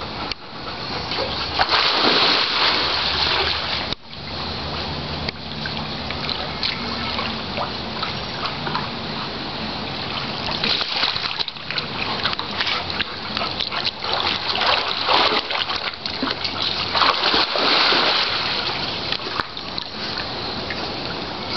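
Water splashing and sloshing as a Labrador retriever paddles through a swimming pool, with a louder stretch of splashing about two seconds in and another later on.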